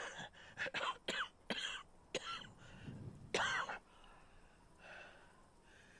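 A man's short, breathy vocal sounds, cough-like exhalations: several sharp ones in the first two seconds and a short voiced one about three and a half seconds in.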